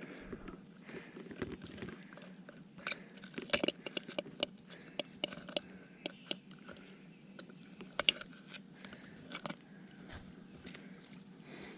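Metal fishing pliers clicking and scraping on a hook in a northern snakehead's mouth as it is worked free: a run of irregular sharp clicks, the loudest a little after three seconds in and again around eight seconds.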